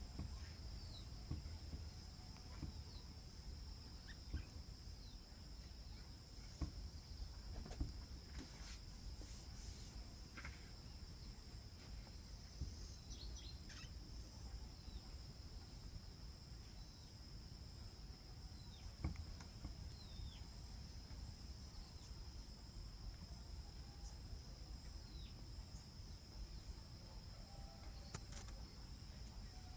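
Faint outdoor ambience: a steady high-pitched insect trill throughout, with a few short falling bird chirps now and then and a low rumble underneath.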